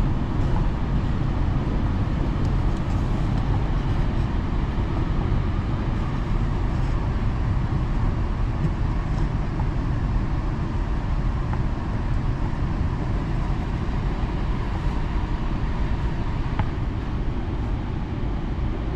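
Alstom Metropolis metro train running on its elevated track, heard from inside at the front window: a steady low rumble of wheels on rail while the train brakes from about 75 to 46 km/h into a station.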